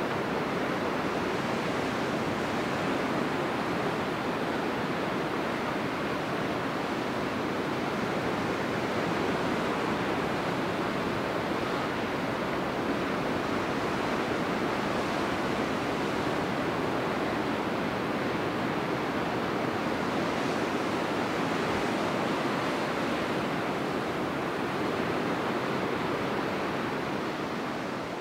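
Sea surf breaking and washing over a rocky shore, a steady rushing wash of waves that fades out near the end.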